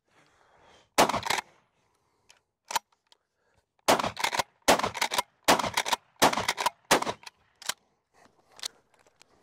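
12-gauge Rock Island All Gen 12 pump-action shotgun firing birdshot. One loud shot comes about a second in, then a quick string of shots about three-quarters of a second apart, with the slide racked between them. A few light clicks near the end are shells being loaded into the magazine tube.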